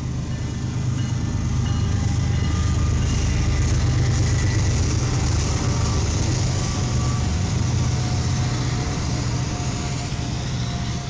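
BNSF diesel freight locomotives passing close by, their engines running with a steady low drone over the rumble of the train. The sound grows louder over the first few seconds as the units come alongside.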